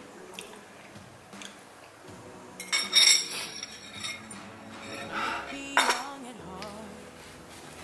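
Eating utensils clinking and scraping against a bowl of noodles, with the loudest clinks about three seconds in and again near six seconds.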